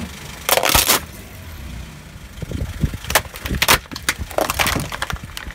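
Car tyre crushing plastic toys: a burst of loud cracking and snapping plastic about half a second in, then more cracks and crunches in the second half, over a car engine idling.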